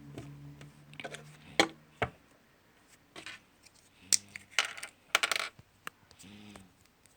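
Fidget cube being played with: a series of sharp, irregular clicks and clacks from its buttons and switches, with a quick run of clicks about five seconds in.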